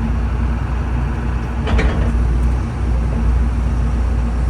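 Heavy machine's engine running steadily close by, with a brief clank or rattle about two seconds in.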